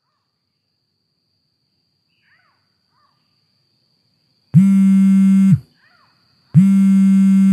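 Mobile phone vibrating for an incoming call: two loud, flat buzzes of about a second each, a second apart, starting about four and a half seconds in. Faint bird chirps and a thin, steady high insect whine sit underneath.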